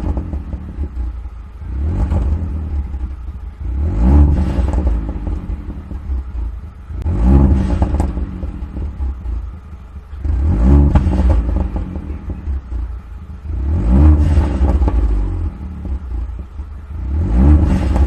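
Volkswagen Vento TSI's exhaust, decatted with a downpipe, resonator deleted and fitted with a Borla Pro XS end can, as the engine is blipped about six times, roughly every three seconds. Each rev rises and falls, with crackles and pops from the exhaust as the revs drop.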